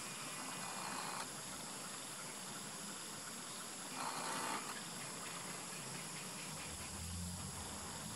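Steady, high-pitched insect-like trilling over a hiss, with two brief bursts of noise about a second in and about four seconds in, and a low hum that comes in near the end.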